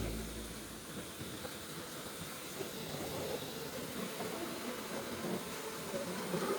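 Pressure washer wand spraying high-pressure soap, a steady hiss.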